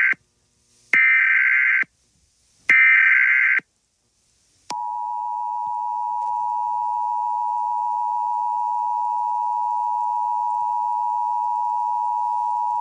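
Emergency Alert System tones: the digital SAME header's bursts of data tones, about a second each and a second apart, then about five seconds in the steady two-tone EAS attention signal, which holds to the end.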